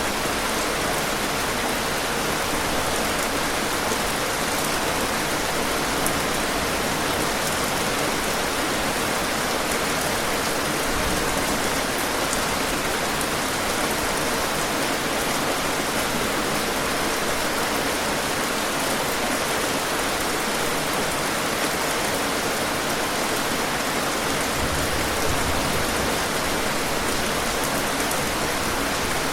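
Steady rain falling, an even hiss of many drops with faint scattered patter of individual drops on a surface.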